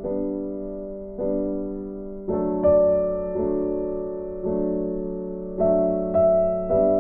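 Background music of slow piano chords, each struck and left to fade, roughly one a second.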